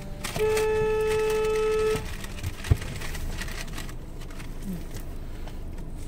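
A vehicle horn sounds one steady blast, about a second and a half long. A single sharp click follows, over steady traffic noise.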